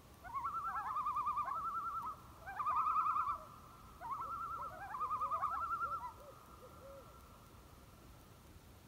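Common loon giving its tremolo call: three bouts of rapid, quavering, laugh-like notes, each rising into a fast warble, with a few fainter low notes after the last bout.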